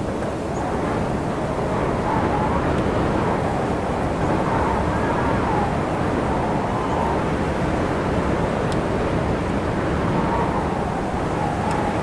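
Mountain wind blowing steadily, a continuous rushing noise with a faint wavering whistle.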